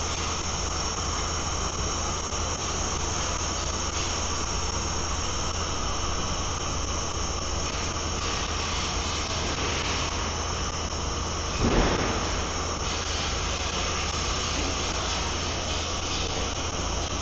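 Steady hum and whine of a jacketed processing kettle system running. There is one brief louder clunk about twelve seconds in.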